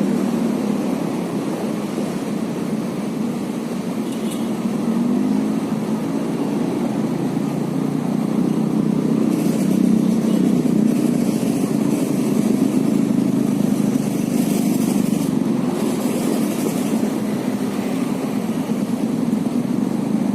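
Steady engine drone, like motor traffic running continuously, with a faint hiss swelling twice in the middle.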